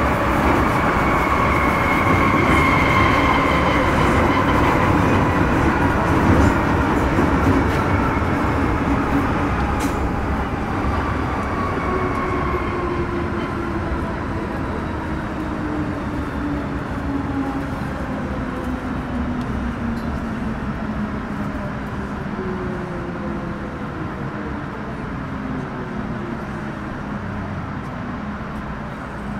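Metro Cammell M-Train (CT-Stock C453) electric multiple unit running on the track, its GEC GTO chopper traction whine gliding steadily down in pitch over a rumble of wheels as the train slows. The whole sound grows gradually quieter.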